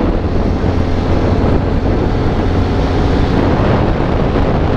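Wind rushing over the microphone while riding a Yamaha WR250X motard, with its 250 cc single-cylinder four-stroke engine running steadily underneath.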